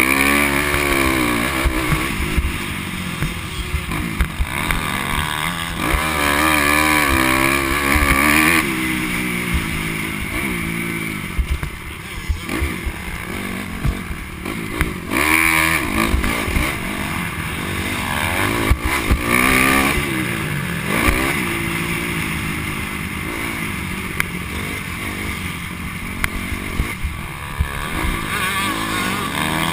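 Dirt bike engine revving up and down over and over as it is ridden around a motocross track, heard close from a helmet-mounted camera, with scattered knocks.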